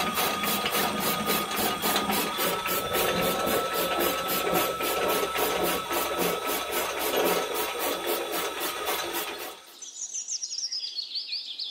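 A toy-sized DIY chaff cutter, driven by a small DC motor through a string belt, chopping grass blades: a steady motor whine under a rasping chop that clicks about three or four times a second. It stops suddenly near the end, and high falling chirps begin.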